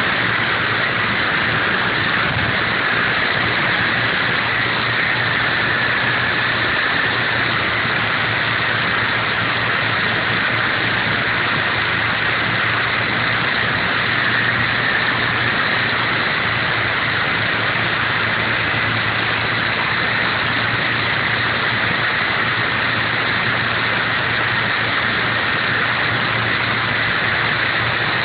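Coaxial RC helicopter's small electric motors and twin rotors running steadily, a high whine over a constant hiss, heard from the camera on board.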